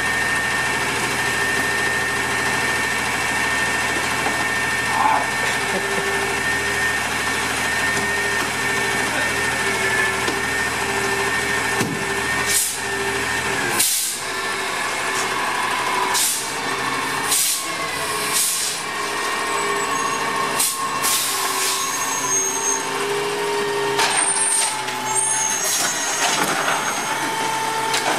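Automated side-loader garbage truck's engine and hydraulics running with a steady whine. From about halfway a series of short sharp hisses and knocks, typical of air brakes and the truck's mechanism.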